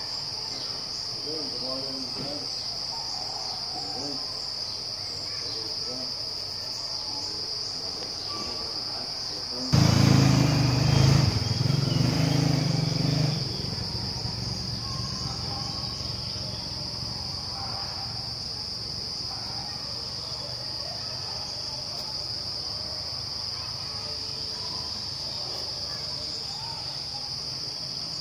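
Steady, high-pitched drone of insects, crickets or cicadas, continuing unchanged. About ten seconds in, a louder low rumbling noise lasts for roughly three and a half seconds.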